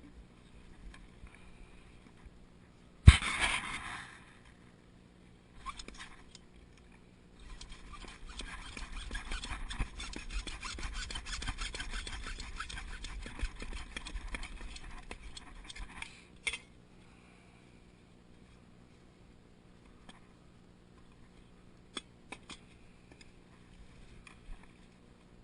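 A sharp knock, then PVC drain pipe being sawn through for about eight seconds with a steady rasping cut, trimming the sump pump discharge pipe flush to the foundation wall.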